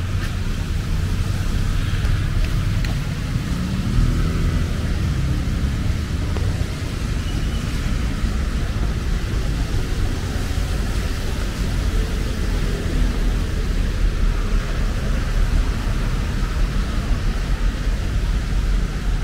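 Steady city street traffic noise, mostly a low hum of vehicle engines and tyres with no single event standing out.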